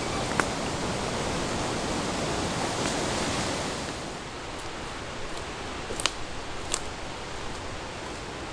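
Steady rushing outdoor noise in woodland that drops and dulls about four seconds in. A few sharp snaps of twigs and dry litter sound under a man's footsteps on the forest floor, one near the start and two close together past the middle.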